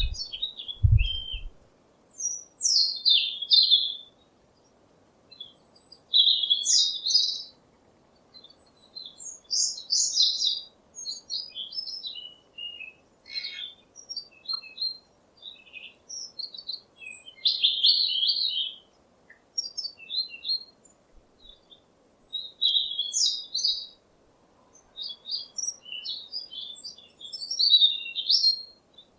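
Small birds chirping and twittering in quick high bursts a second or two long, separated by short pauses, over a faint steady background hiss. A brief low rumble sounds about a second in.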